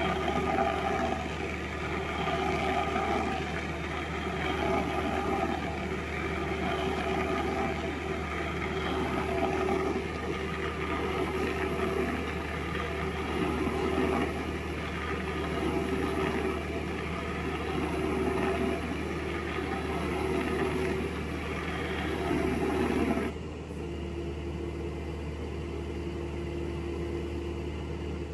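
Heavy diesel machinery running, its sound swelling and easing. About 23 seconds in it changes abruptly to a quieter engine with a steady tone.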